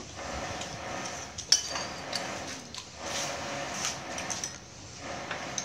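Metal spoons clinking and scraping against ceramic bowls and plates as people eat, with one sharper ringing clink about a second and a half in.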